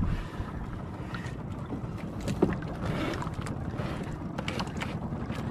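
Small boat engine running steadily as the boat travels, a fast low chug.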